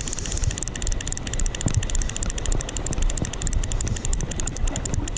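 Steady rumbling wind and water noise on the microphone, with a fast, even ticking running through it.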